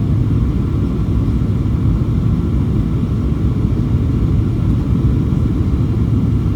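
Steady low rumble of cabin noise inside a Boeing 737-800 in flight, with airflow and the drone of its CFM56 engines, with faint steady tones above it.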